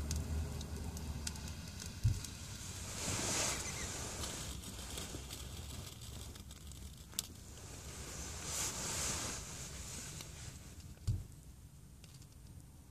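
Someone drawing on a glass hand pipe lit with a lighter: two airy hisses of about a second each, the first about three seconds in and the second near nine seconds, with sharp clicks before each.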